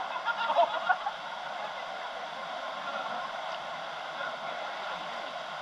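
Steady rush of falling water from a waterfall, with a few brief voices in the first second.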